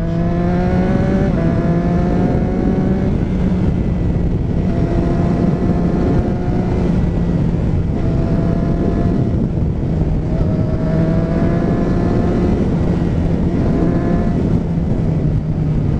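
Motorcycle engine running on the move, heavy wind rumble on the microphone, with the engine note climbing slowly several times as the bike accelerates.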